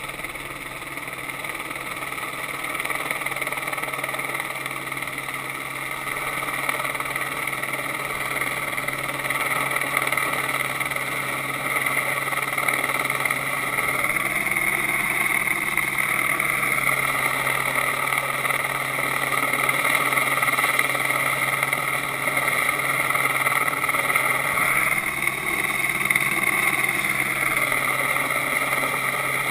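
Helicopter running overhead during a long-line approach, a steady drone that grows louder as the slung load is lowered toward the ground. Twice a lower tone swells up and back down.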